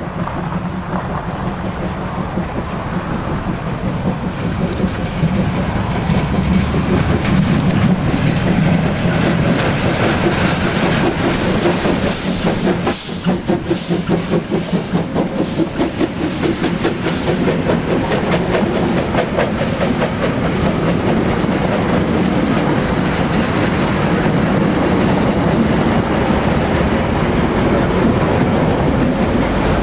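Steam-hauled excursion train passing close at speed: the sound swells as the locomotive approaches, then the carriages clatter by with their wheels clicking rapidly over the rail joints.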